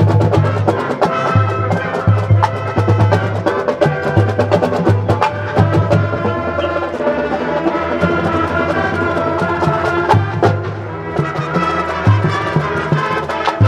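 Marching band playing live: brass and saxophones holding sustained chords over a drumline beating out frequent sharp drum strikes.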